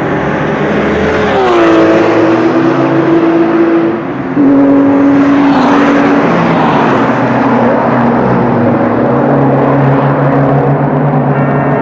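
Sports and racing cars passing close by at speed on a circuit straight, one after another. Each engine note drops in pitch as the car goes past, once about a second and a half in and again a little past the middle. Engine sound stays loud throughout.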